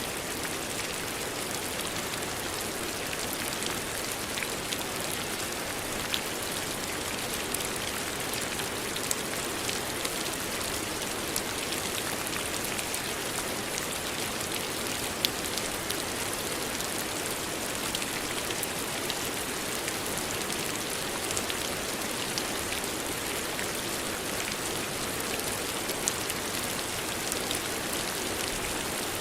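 Steady rain falling, an even hiss with individual drops ticking sharply on a surface now and then.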